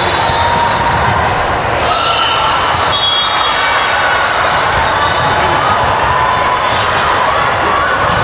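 Steady din of a busy volleyball tournament hall: many voices mixing together, with volleyballs bouncing and struck, and a few sharp knocks about two and three seconds in.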